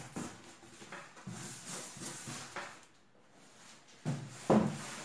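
Cardboard box and its packing being handled: scattered rustling and scraping, then two knocks about four seconds in, the second the loudest, as the box is moved.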